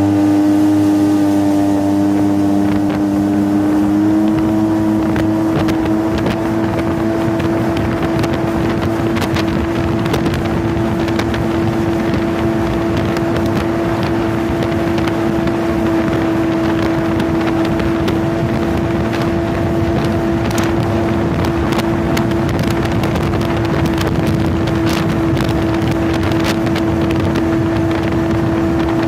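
Polaris MSX 140 personal watercraft's four-stroke engine running at a steady high speed, its note climbing slightly in the first few seconds and then holding, with wind rushing on the microphone and many brief sharp clicks or slaps scattered through.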